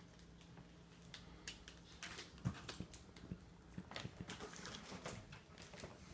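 Faint, irregular light taps and rustles of wrapping paper as a toddler pats and pulls at wrapped gift boxes. The sharpest tap comes about two and a half seconds in.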